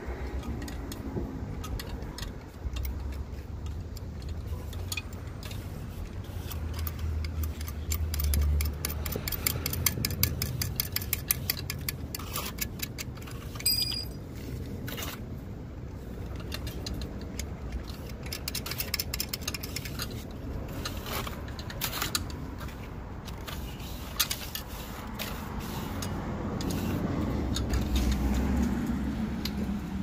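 Small metal parts clinking and tapping as a tamper switch's steel bracket and clamp hardware are fitted to a gate valve's yoke, with a run of quick clicks in the middle. A low rumble swells twice in the background.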